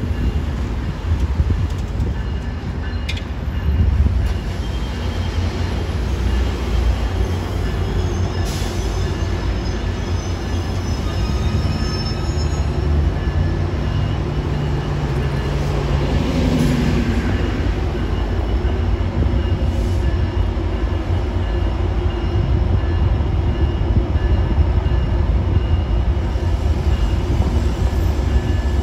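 Metra commuter train rolling over a steel railway bridge with a steady low rumble, and thin high wheel squeals about a third of the way through. Street traffic and a city bus pass beneath.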